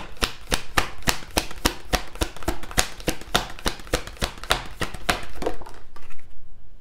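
A large tarot deck being shuffled by dropping small packets of cards from one hand onto a pile on the table: a quick, even run of card slaps, about four or five a second, that stops about five and a half seconds in.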